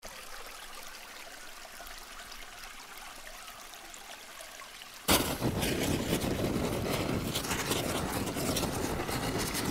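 A faint hiss, then about five seconds in a sudden loud crackling, rushing noise begins: a burning-fire sound effect.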